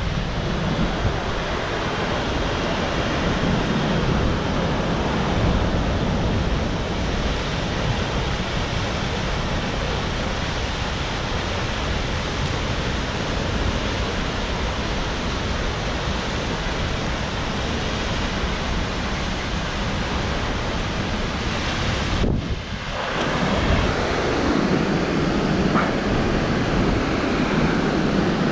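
Steady roar of Vernal Fall's water crashing down, close by, with wind and spray buffeting the microphone. The sound dips briefly once, about three-quarters of the way through.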